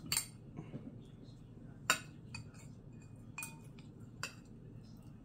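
A metal spoon clinking against a ceramic rice bowl: about five sharp taps spread out, the loudest about two seconds in, a couple with a brief ring.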